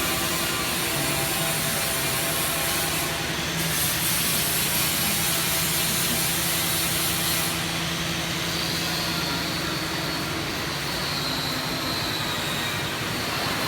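CNC hydraulic sheet-metal shearing machine running steadily with a low hum and a high hiss; the hiss drops away about seven seconds in.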